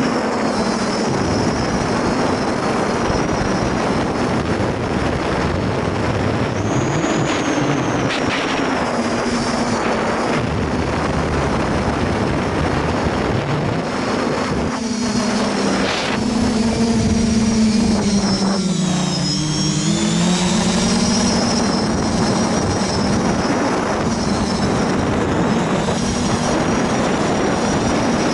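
Quadcopter's four Sunnysky 2212 1400Kv brushless motors spinning 8x4.5 props, heard from the onboard camera: a steady buzzing hum whose pitch rises and falls with throttle, dipping lower about two-thirds of the way through, over rushing air noise.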